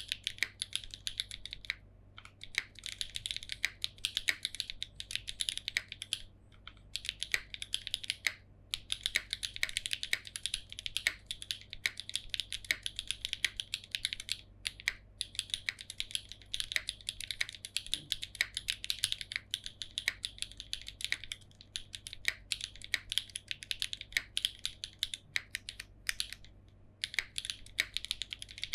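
Mechanical keyboard being typed on, a Cherry B Neo87 with Jieum V2 switches, GMK Oblivion keycaps and no foam. Fast clicking keystrokes come in runs of a few seconds, broken by brief pauses, with a steady low hum under them.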